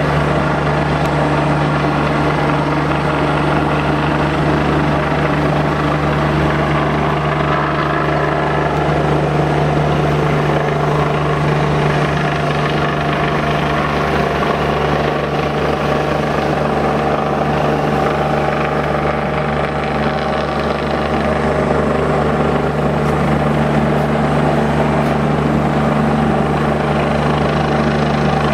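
Helicopter flying over the valley, its rotor and engine drone steady and loud. It is a red-and-white rescue helicopter, apparently come to search the river for someone swept away.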